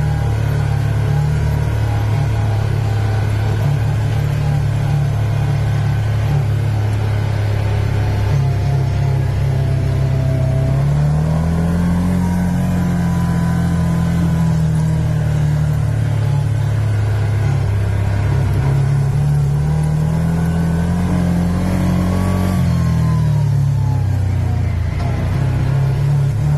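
Off-road vehicle engine running under way on a sandy trail, heard from inside the vehicle. The engine speed rises about eleven seconds in, holds for a few seconds and drops back, then rises and falls again about twenty seconds in.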